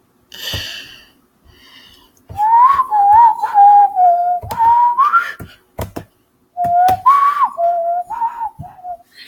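A person whistling a tune in two phrases of about three seconds each, with a short break between them, and a few sharp clicks.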